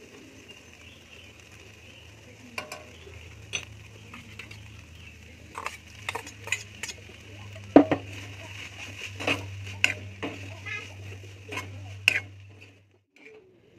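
Sliced ivy gourd and potato sizzling in an aluminium kadai while a metal spatula scrapes and clinks against the pan. There is a loud clank about eight seconds in as more vegetables are tipped in. A steady low hum runs underneath and stops about a second before the end.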